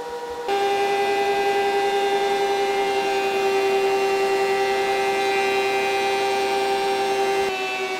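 DeWalt benchtop thickness planer running with a steady whine as a board is fed through its cutter head. About half a second in it gets louder and the tone drops a little, and it shifts again near the end.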